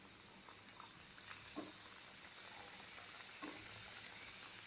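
Oil faintly sizzling as somas deep-fry, with two brief louder pops about one and a half and three and a half seconds in.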